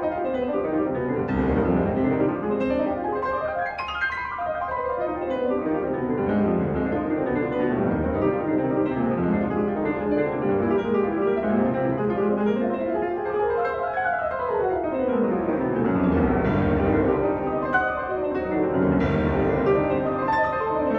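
Classical piano music: fast scales running up and down the keyboard, with no let-up.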